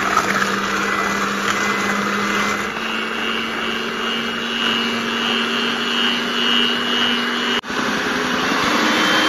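Electric hand mixer running at a steady speed, its twin beaters whisking eggs, oil and sugar in a stainless steel bowl until the sugar dissolves. The motor hum drops out for a split second about three-quarters of the way through, then carries on.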